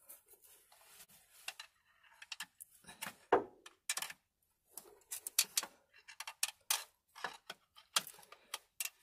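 Metal hand tools clicking, tapping and scraping irregularly against the rear output housing of a Turner T5A gearbox while the old rear oil seal is pried out, with a louder knock about three seconds in.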